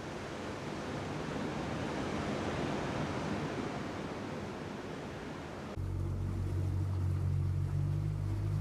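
Steady rushing of sea surf and wind. About six seconds in it cuts abruptly to a small motorboat's engine running with a steady low hum, heard from on board.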